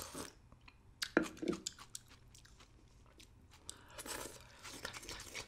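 Close-miked mouth sounds of someone drinking leftover pickling sauce: a slurp from a small dish at the start, sharp lip smacks about a second in, then wet sucking as a finger is licked clean around four seconds in.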